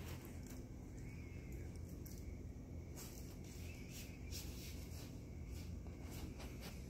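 A puppy's paws and claws scratching and pawing at the concrete in short, irregular scuffs, over a low steady background hum.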